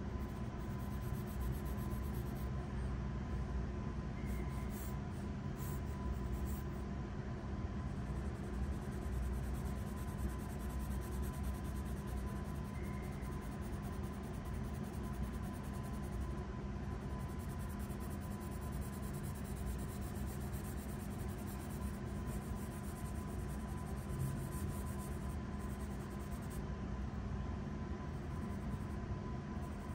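Graphite pencil scratching and rubbing on paper as it shades a drawing, over a steady low hum with a thin faint tone.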